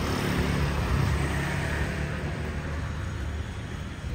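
Motor scooter passing close by on the road, its engine and tyre noise swelling about a second in and then fading as it goes by, over a steady street rumble.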